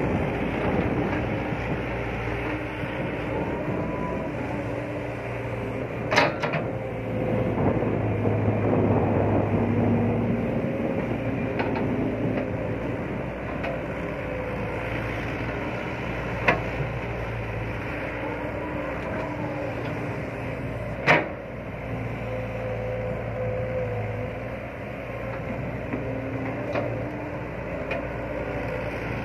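Caterpillar 312B excavator's diesel engine running under working load, its pitch rising and falling as the hydraulics dig and swing the bucket. Three sharp clanks stand out, about six, sixteen and twenty-one seconds in.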